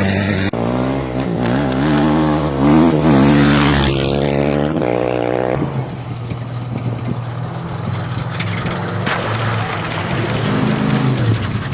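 Off-road vehicle engines running and revving, the pitch rising and falling with the throttle, in several short clips cut together.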